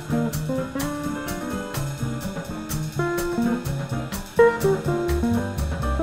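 Jazz quartet music: guitar playing over upright bass, keyboard and drums, with a steady cymbal beat.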